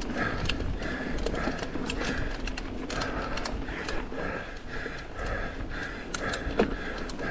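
Mountain bike riding fast down a dirt singletrack: tyres rumbling over dirt and leaves, wind on the microphone, and the chain and frame clattering over bumps, with one sharp knock about six and a half seconds in. A faint high chirp repeats about two to three times a second throughout.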